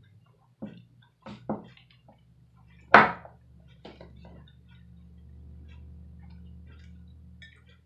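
Close-miked eating sounds: a series of short, sharp mouth and utensil clicks and smacks as fried shrimp and coleslaw are eaten, the loudest about three seconds in. A low steady hum comes in about halfway and stops just before the end.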